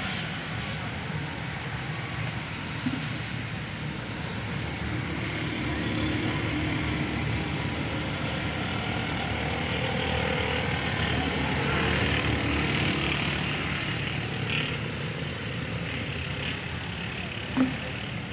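Steady motor-vehicle noise, a low rumble under a hiss, swelling a little in the middle and easing toward the end, with one sharp click near the end.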